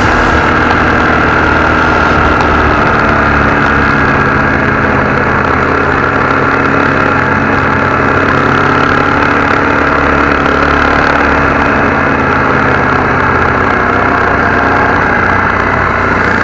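Honda CRF250Rally's single-cylinder engine running at a steady, even pace while the motorcycle rides along.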